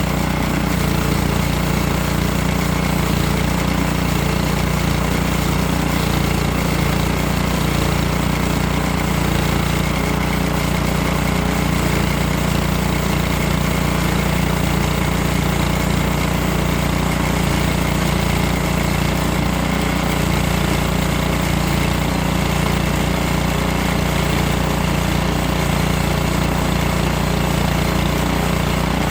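Small gasoline engine of a sawmill running steadily under load as it drives the blade through a hardwood log.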